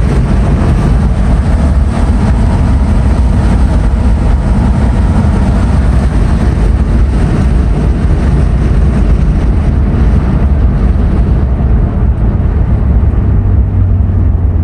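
A 1965 Chevrolet Corvette's V8 running at road speed, heard from inside the cabin as a steady low rumble mixed with wind and road noise. The hiss eases off near the end as a low engine hum comes forward.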